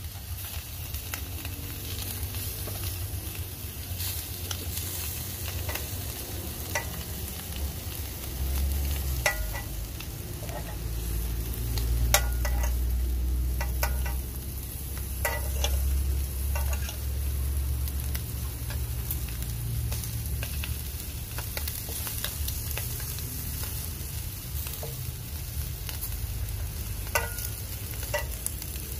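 Galunggong (mackerel scad) sizzling on a grill pan as a fork turns them, with scattered sharp clicks of the fork against the grates and fish. A low rumble swells for several seconds in the middle.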